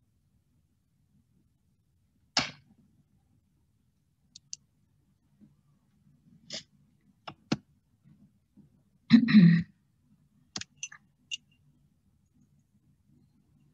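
A few scattered sharp clicks and short knocks picked up over a video call, with one louder, brief noisy burst a little past the middle.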